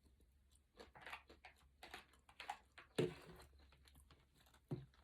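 Close-up chewing of crispy fried onions: a run of small, irregular crunches and mouth clicks, the loudest about three seconds in and another near the end.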